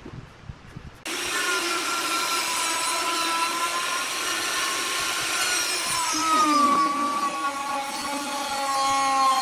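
Handheld electric router cutting a groove along a wooden board. Its motor whine comes in abruptly about a second in, then runs steadily and dips briefly in pitch around the middle as the bit takes load.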